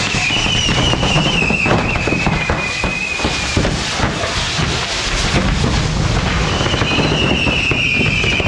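Fireworks on a burning pyrotechnic figure: dense crackling and popping throughout, with a high whistle that fades out about halfway and starts again near the end.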